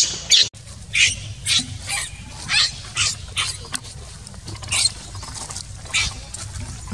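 Infant macaque giving a string of short, high-pitched screams, about one every half second with a pause near the middle: distress cries as its mother handles it roughly.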